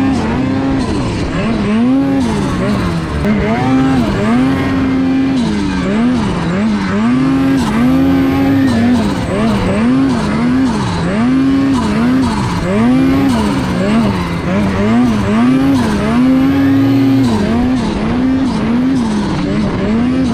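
Snowmobile engine under way, its pitch repeatedly dipping and climbing back as the throttle is let off and opened again, with stretches held steady between.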